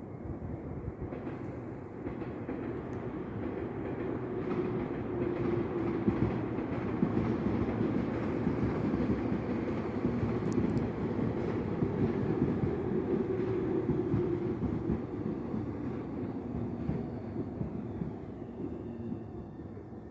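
Tobu Tojo Line electric train passing by on the track, its running noise building up, staying loud through the middle and fading away near the end, with light clicks from the wheels.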